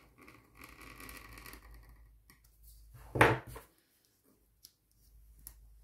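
Craft knife blade scraping along paper as it trims sticker and washi tape, followed about three seconds in by a brief, loud rustling knock, then a few faint clicks as tweezers are handled.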